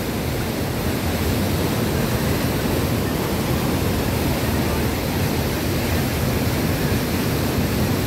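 Mountain stream cascading between boulders as white water, a steady, unbroken rush.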